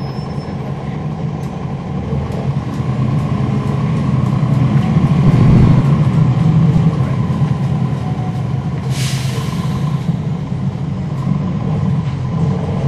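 Cummins ISL9 inline-six diesel of a NABI 40-foot transit bus, heard from on board, pulling under load, its sound building over the first several seconds. About nine seconds in comes a short burst of air hissing.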